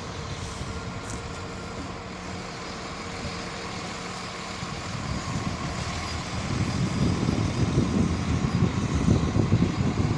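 Train at a station platform: a steady hum, then a low rumble that grows louder about six seconds in as the train moves closer.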